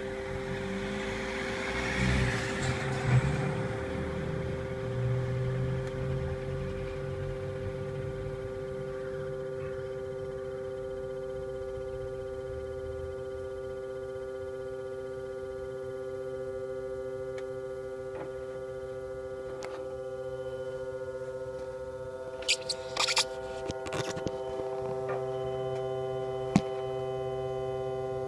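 Steady electrical humming from the engine bay of a 2010 Iveco Daily 45C18 van after the ignition is switched off, a few constant tones sounding at once. Its cause is unknown; the workshop calls it normal, but it is new to the van. There is rustling in the first few seconds and a few sharp knocks near the end.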